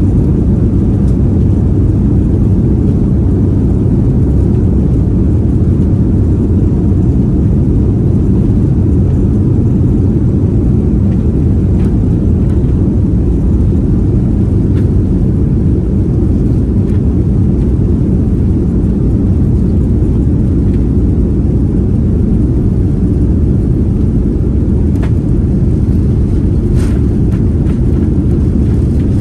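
Steady low rumble of a Lufthansa Airbus A340's engines and wheels, heard from inside the passenger cabin as the four-engine airliner rolls along the runway.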